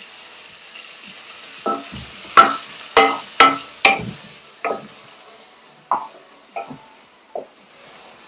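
Diced guanciale and pancetta frying in a pan with a faint sizzle, while a utensil stirs it and knocks against the pan about ten times, each knock ringing briefly.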